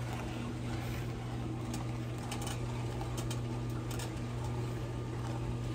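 Sugar glaze bubbling in a frying pan as a spatula stirs it, with a few faint clicks of the spatula against the pan over a steady low hum.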